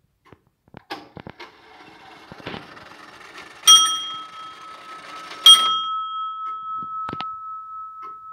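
Antique Dutch stoelklok (chair clock) striking on its bell after its cord is pulled: the strike train whirs and clicks, then the bell is struck twice, nearly two seconds apart, each blow ringing on with a long steady tone.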